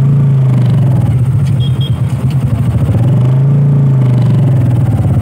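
Motorcycle engine of a tricycle heard from inside its sidecar while riding, its pitch easing down and then rising and falling again about three seconds in as the rider works the throttle.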